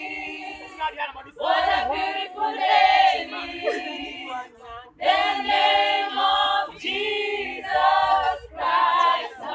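A group of voices singing unaccompanied, in phrases of held notes with short breaks between them.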